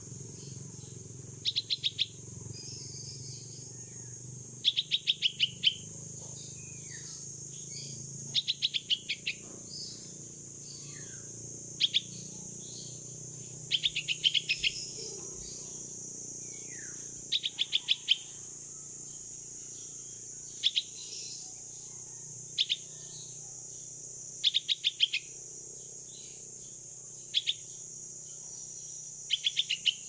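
Yellow-vented bulbul fledgling calling for its parent: groups of quick, sharp, high chips, mostly four to six in a row and sometimes a single note, repeated every two or three seconds. A steady high insect hiss runs underneath.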